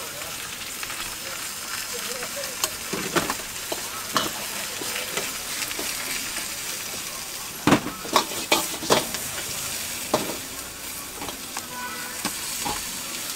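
Leafy greens sizzling in a hot wok as they are stir-fried, a steady high hiss. Metal utensils scrape and knock against the wok, with a run of loud clanks about eight seconds in.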